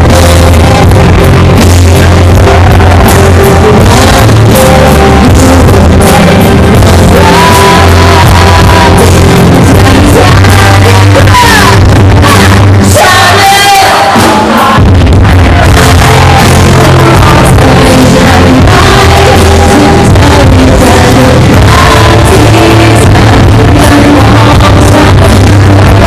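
Live song over a loud PA: a woman singing into a handheld microphone over heavy, bass-laden backing, recorded very loud. About halfway through the bass drops out for a moment under a rising vocal line, then the full band sound comes back.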